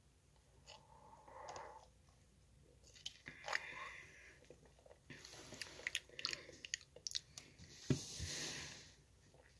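Someone drinking from an aluminium drink can: soft gulping and swallowing mouth noises with small clicks of lips and can. There is a thump and a short rush of noise about eight seconds in, as the can comes down.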